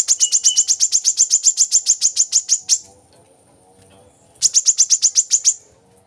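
Brown-throated sunbird (kolibri kelapa) singing: a fast trill of high, sharp repeated notes, about ten a second, lasting nearly three seconds, then after a short pause a second trill of about a second.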